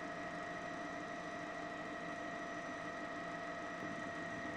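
Steady mechanical drone with several constant whining tones over a noisy bed, the sound of a news helicopter's turbine engine and rotors heard from inside the aircraft.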